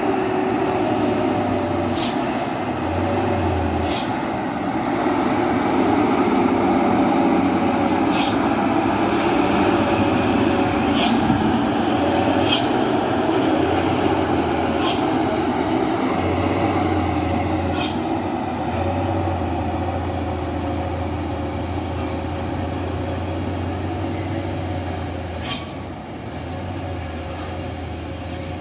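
Heavy dump truck's diesel engine running under load on a steep hill road: a steady drone, with short sharp clicks or hisses every couple of seconds, dropping slightly near the end.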